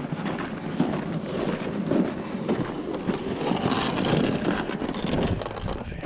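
Wind buffeting the microphone in steady, gusting rushes.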